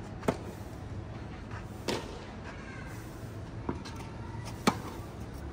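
Tennis ball struck back and forth with rackets in a rally: four sharp pops about one to two seconds apart, the last one the loudest.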